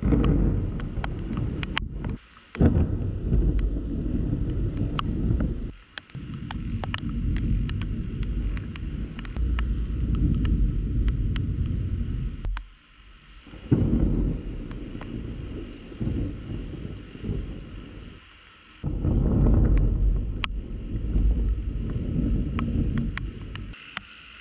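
Thunder rumbling during a heavy thunderstorm, heard muffled through a GoPro's waterproof housing, with raindrops ticking sharply on the housing. The rumble comes in several stretches that start and cut off abruptly.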